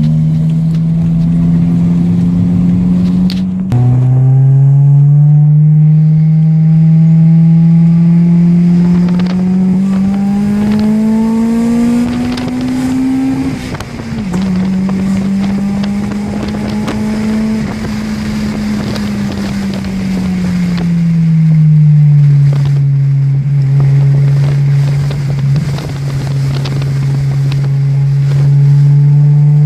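Toyota Altezza's 3S-GE inline-four, running on a Speeduino standalone ECU, heard from inside the cabin while driving. The engine note drops suddenly twice at gear changes, climbs steadily in between, and sinks back as the car eases off.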